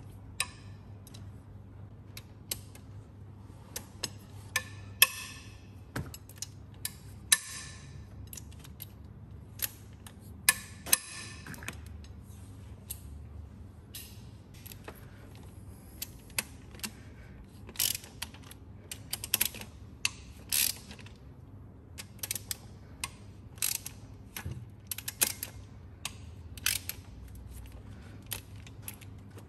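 Hand ratchet and socket wrench on the E12 Torx cylinder head bolts of a 1.8 F18D4 engine, cracked loose one by one: short runs of ratchet clicks and sharp metal clicks and clinks, with pauses between bolts.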